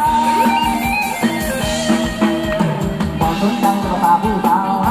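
Live Thai ramwong dance band playing: a melody line sung over electric guitar and a drum kit keeping a steady beat.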